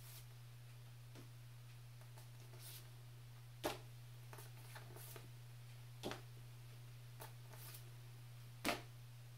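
Large card phonics flashcards being flipped and set aside one at a time: three short papery slaps, roughly two and a half seconds apart, with a few fainter rustles between them. A steady low hum runs underneath.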